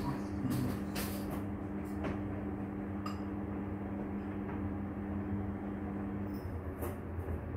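A machine's steady hum over a low rumble, cutting off about six seconds in, with a few light clicks and clinks.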